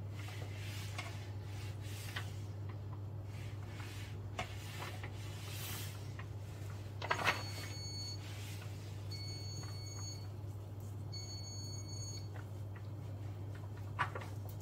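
Kitchen room tone with a steady low hum, soft rustles and a small knock of hands laying toppings on a pizza, and three short electronic beeps about a second long each in the middle.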